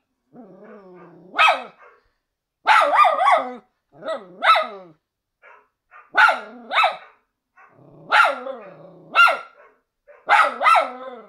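A dog's high-pitched yelping barks and whines, in short clusters every second or two, each yelp bending up and then down in pitch.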